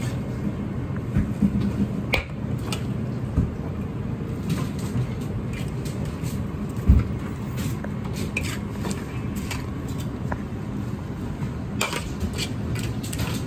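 Commercial kitchen background: a steady low rumble with scattered clinks and knocks of dishes and utensils. There is one dull thump about seven seconds in and a quick run of clinks near the end.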